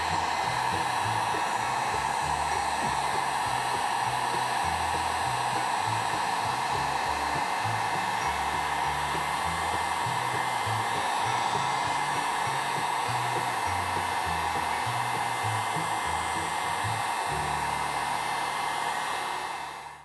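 A handheld hot-air blower runs steadily, warming a freshly applied decal so it lays down smooth on the outboard's fuel tank. It is switched off near the end.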